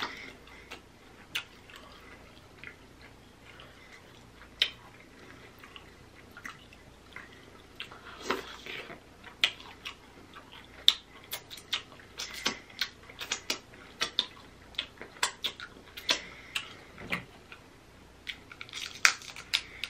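Close-miked eating of a king crab and shrimp seafood boil in butter sauce: wet chewing and mouth smacks with scattered sharp clicks and snaps. The sounds are sparse at first and come thick and fast about halfway in.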